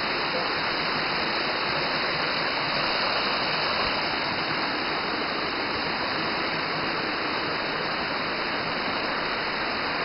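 Waterfall splashing down a rock face into a shallow pool: a steady rush of falling water.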